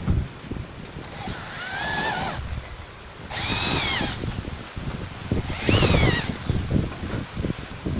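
Handheld power tool run in three short bursts while working wood, its whine rising and then falling in pitch each time.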